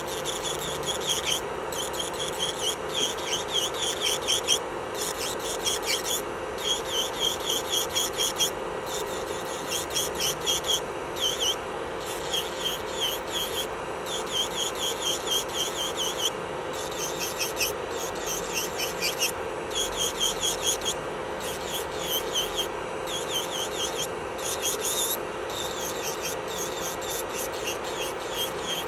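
Electric nail drill (e-file) running with a steady whine while its bit grinds a fingernail in quick, repeated short passes, stopping briefly every few seconds.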